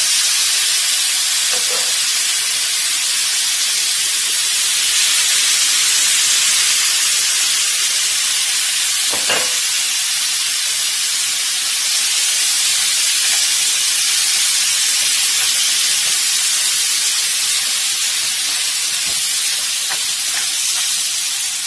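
Cream-based alfredo sauce sizzling steadily in a hot nonstick frying pan over browned chicken strips, with one short click about nine seconds in. A spatula starts stirring the sauce near the end.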